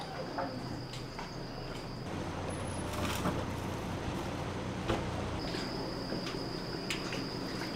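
An insect's steady high-pitched buzz that stops about two seconds in and comes back near the end. A low hum fills the gap between, with scattered light clicks throughout.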